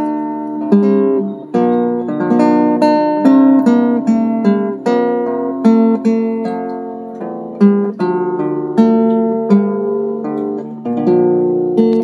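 Background music: acoustic guitar strumming and picking chords, each one ringing out and fading before the next.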